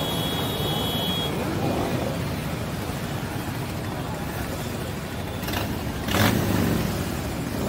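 Motorcycle engines running in a slow parade, a steady mix of engine noise, with one louder surge of engine sound about six seconds in that fades within a second or so.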